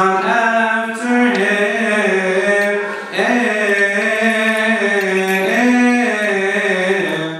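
A single male voice chanting a Coptic Orthodox liturgical melody unaccompanied, in long held, melismatic notes broken into a few phrases.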